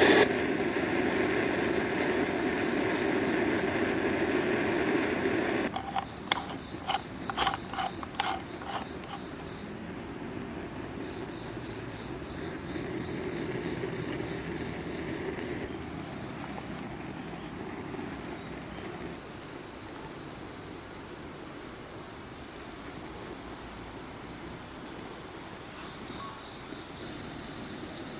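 Forest insects droning steadily at several high pitches. A lower steady hiss underneath stops about six seconds in, and a quick run of about eight sharp knocks or clicks follows over the next three seconds.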